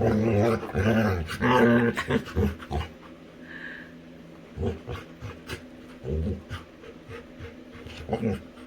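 Labrador retriever making playful growling, grumbling vocal sounds for about three seconds, then quieter, with a few short grunts and panting.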